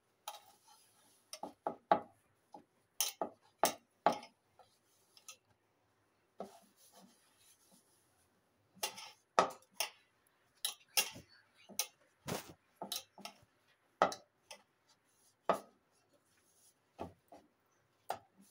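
Hand kneading semolina-and-flour dough in a plastic bowl: irregular knocks and taps as the knuckles press the dough against the bowl, some sharp, with a quieter stretch about six seconds in.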